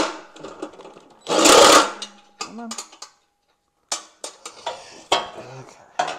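DeWalt cordless driver spinning in a short burst of just over half a second, backing a screw out of a robot's steel frame. Scattered sharp clicks and knocks of parts being handled follow in the second half.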